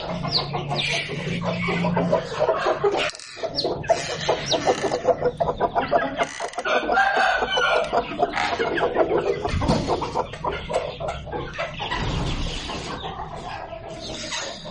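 Chickens clucking in quick, busy calls, with thin high peeps from chicks mixed in.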